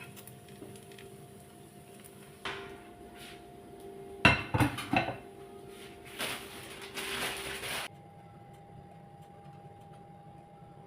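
Kitchenware being handled: a quick cluster of sharp, ringing clinks of dishes and utensils about four seconds in, then a couple of seconds of scraping or rustling noise that stops suddenly. A faint steady hum runs underneath.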